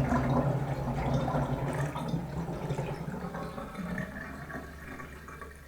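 Bathtub drain gurgling as the water runs out of the tub, growing steadily fainter.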